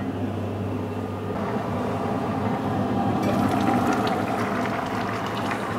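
Pot of peas in broth simmering on the stove with a steady bubbling. The bubbling grows brighter and crackles more from about three seconds in, as the stainless steel lid comes off.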